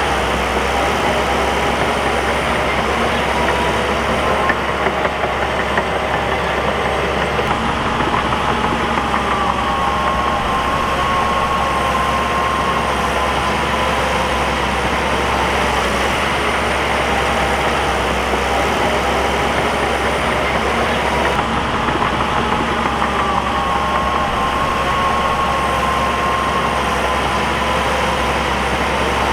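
Bulldozer's diesel engine running steadily under work, its pitch rising and easing off a couple of times.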